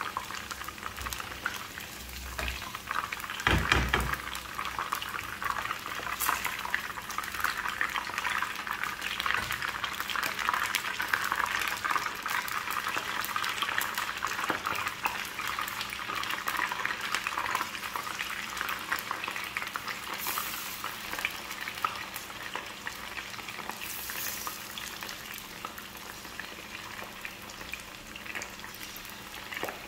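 Hot oil sizzling and crackling around cornflour-marinated chicken pieces frying in a nonstick frying pan, growing busier in the middle as the pan fills and easing slightly near the end. A single knock about three and a half seconds in.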